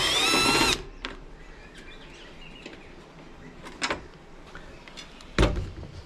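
Cordless drill-driver spinning briefly to back out a screw, its motor whine rising a little in pitch for under a second. Later a click and, about five and a half seconds in, a loud thump.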